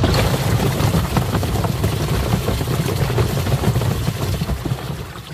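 Twin-tub washing machine's wash tub running: a steady motor hum under churning, splashing water, which comes in suddenly at full level.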